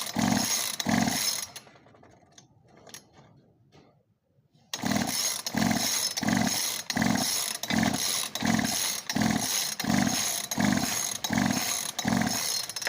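Poulan P3816 chainsaw's pull starter worked in quick short strokes, about two a second, spinning the engine over with the spark plug out to check for spark. There is a pause of about three seconds after the first strokes, then the pulling resumes.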